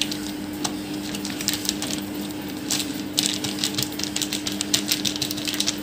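Oiled plastic sheet crinkling and crackling in quick, irregular bursts as hands fold and pat stuffed dough flat on it, busier in the second half, over a steady low hum.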